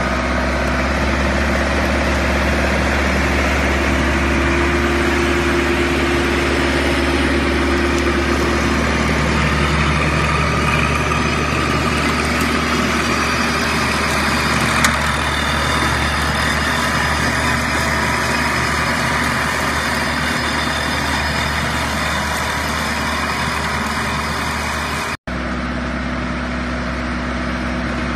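A small diesel garden tractor's engine runs steadily under load while it drives a rear-mounted flail mower shredding grass and weeds. There is one sharp knock about halfway through, and the sound drops out for a moment about three-quarters of the way through.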